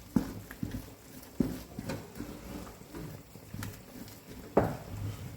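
Thick pounded-yam fufu dough being stirred in a pot: the stirring utensil knocks and thuds irregularly against the pot, with the loudest knock near the end.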